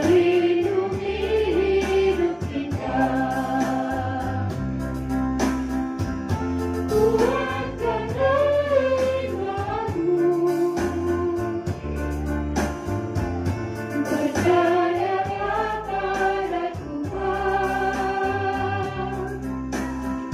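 Mixed choir of men and women singing a song in parts, led by a conductor, over a steady keyboard accompaniment of sustained low chords.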